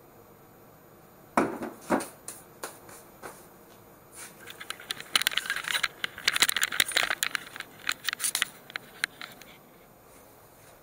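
Sharp knocks of sawn wooden blocks being handled at the saw bench, then several seconds of quick light clattering and rattling.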